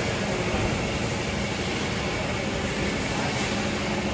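Automatic rollover car-wash gantry running around a car: a steady noise with a faint low hum under it.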